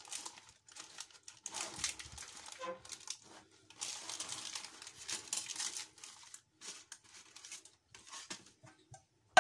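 A sheet of baking paper lining a roasting pan crinkling and rustling in irregular bursts as hands press and pull at it.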